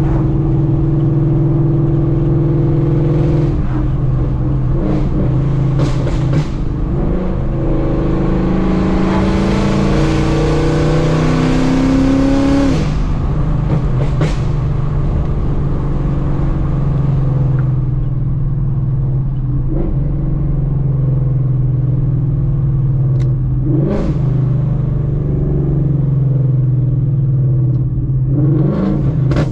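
Ford Mustang GT's Coyote 5.0 V8 on a burble tune, straight-piped through long-tube headers, an X-pipe and no mufflers, heard from inside the cabin while driving. The revs climb through an acceleration from about eight seconds in, drop off suddenly near thirteen seconds, then settle into a steady cruise, with a few sharp pops from the exhaust along the way.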